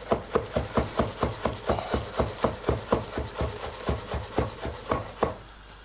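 Chef's knife chopping a garlic clove on a wooden cutting board: quick, even knocks of the blade on the wood, about five a second, stopping near the end.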